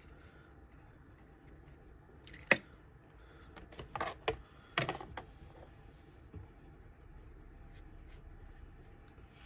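A sharp knock about two and a half seconds in, then a few knocks and scrapes over the next two seconds, as the board holding the taped watercolour card is turned on the cutting mat. The rest is quiet room tone.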